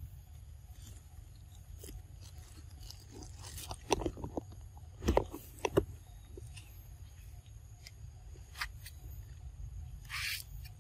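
A macaque biting into and chewing a mango, with a cluster of sharp bites about four to six seconds in. A brief hissing noise comes near the end.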